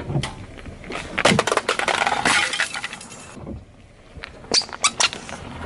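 Car tyre crushing a plastic digital alarm clock: a dense run of cracking and snapping plastic with glassy clinks from about a second in. After a short quieter stretch, a few separate sharp snaps come near the end.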